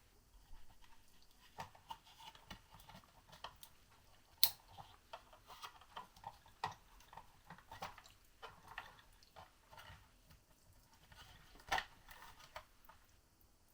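Small clicks, taps and rustles of hands working on mains wiring and small parts, with two sharper clicks, one about four seconds in and one near the end.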